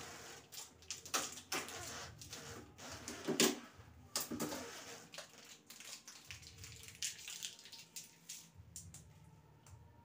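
Handling noises from a new fridge's freezer compartment: a run of rustles, scrapes and knocks as something small is taken out and handled, with the loudest knock about three and a half seconds in and sparser, fainter sounds in the second half.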